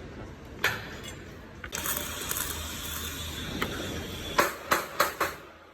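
Sharp metallic knocks and clanks of steel concrete formwork being fitted: one near the start, then four in quick succession near the end, with a hiss in between.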